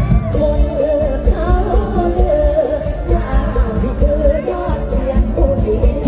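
A woman singing a Thai song into a microphone, her voice wavering with vibrato, over a loud amplified band with a heavy, pulsing bass beat.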